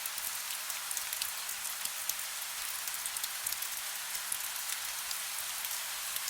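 Soft steady rain with many small, close drops ticking on a surface.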